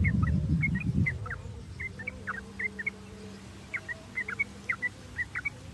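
Yellow-vented bulbul (trucuk) calling: a run of short, quick chirping notes in irregular clusters, some falling in pitch. A low rumble sits under the first second.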